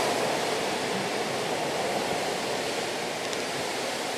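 A steady rushing noise of the open air outside the window, with no distinct events, slowly growing quieter.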